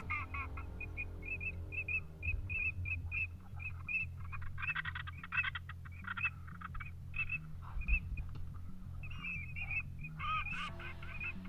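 Duck calls: a run of short, high whistled notes about three a second, broken by bursts of quacking, over a steady low hum.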